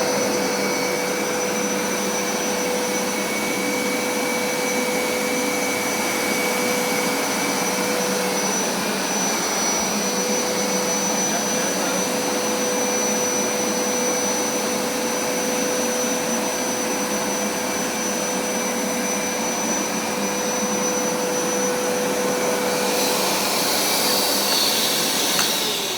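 Hoover SmartWash Plus carpet cleaner running steadily: a motor whine over a rush of suction. Near the end the sound turns hissier.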